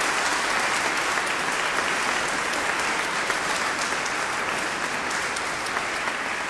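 Audience applauding, a steady clapping that slowly dies down.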